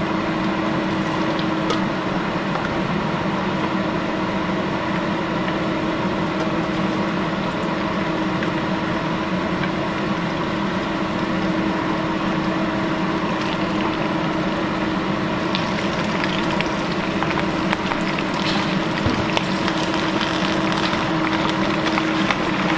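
Hot oil sizzling in a wok over a steady low hum. About two-thirds of the way in the sizzling turns louder and crackly as whole crawfish go into the oil and are stirred.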